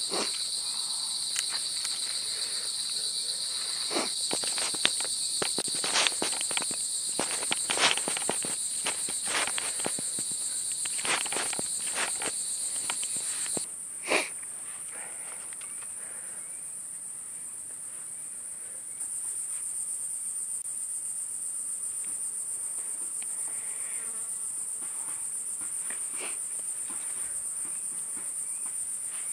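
A steady, shrill chorus of forest insects in two high bands; the lower band drops out about halfway through. Over the first half come many sharp clicks and knocks from a knife and wooden sticks being cut and handled, with one louder knock just after the insect band drops.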